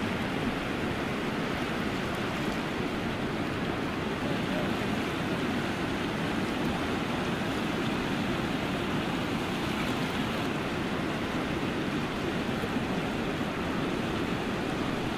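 Whitewater river rapids rushing steadily, an even, unbroken noise of churning water.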